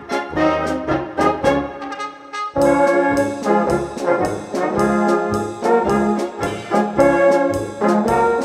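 Brass-band polka (Blasmusik) played on multitracked brass, baritone horn among them, over an oom-pah bass on the beat. The music thins out briefly about two seconds in, then the full brass comes back in louder.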